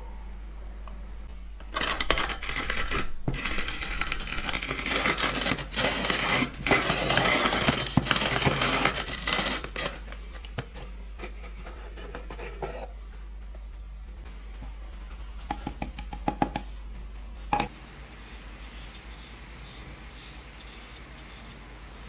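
Vintage French hand-cranked coffee grinder grinding whole coffee beans: a loud gritty crunching with rapid cracks for about eight seconds as the crank turns. This is followed by a few lighter clicks and scrapes as the wooden drawer of fresh grounds is handled.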